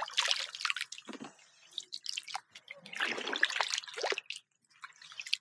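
Paddle strokes in shallow water: irregular splashes and water dripping off the paddle blade, coming in bursts about once a second.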